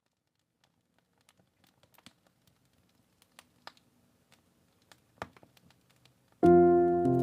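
Faint, sparse crackling of a fireplace, a scattering of small pops and clicks. Near the end, piano music comes in abruptly with a sustained chord that is much louder than the fire.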